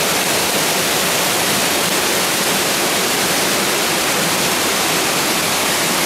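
Steady rush of water pouring down the waterfall's limestone cascades into the stream pool below.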